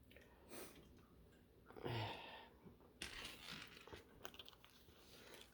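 Near silence with faint handling noises: small clicks and rustling as parts are moved, and a brief low murmur about two seconds in.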